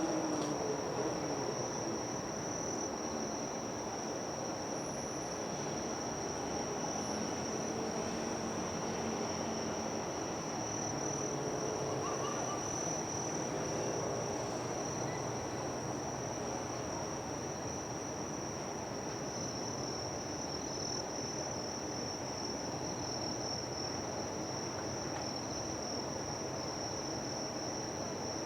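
Insects trilling in one continuous, steady high-pitched note, over a steady low background rumble.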